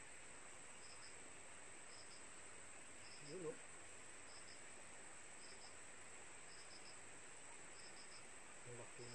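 Faint cricket chirping: short groups of two or three pulses repeating about once a second over a steady high-pitched drone, with a brief low sound about three seconds in.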